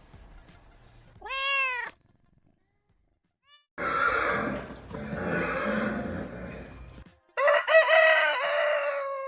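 A series of separate animal calls: a short rising-and-falling call about a second in, a longer, rougher call from about four to seven seconds, and a wavering, pitched call near the end.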